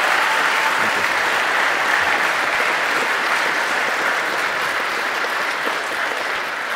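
Audience applauding, a steady clapping that eases off slightly toward the end.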